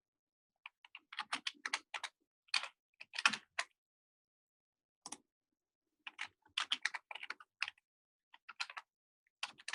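Typing on a computer keyboard: quick runs of key clicks in several short bursts with brief pauses between them.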